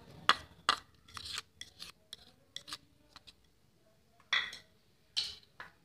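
Steel kitchenware clinking and scraping: a string of short, irregular clicks and taps, with two longer scraping rasps in the last second and a half.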